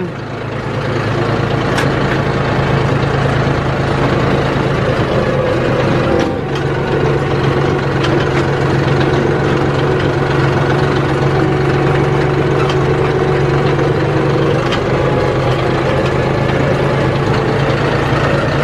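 John Deere 5075E tractor's diesel engine running at a steady speed while driving, easing off briefly about six seconds in.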